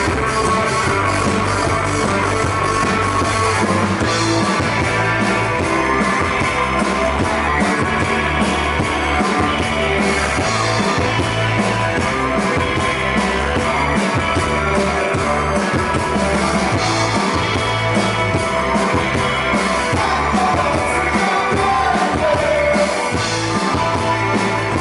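Live rock band playing, electric guitars over a drum kit, with a steady beat.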